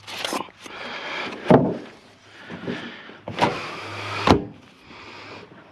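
A discarded microwave oven being hauled and pushed onto a scrap trailer: several knocks and scrapes of its metal casing over a steady low hum.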